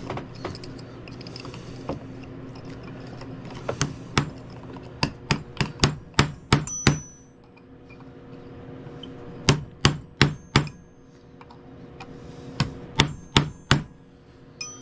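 Hammer knocking at a stuck roll pin in a vintage Craftsman basin wrench, steel on steel: four runs of sharp metallic taps, several to each run, some leaving a brief ring. A steady low hum runs underneath.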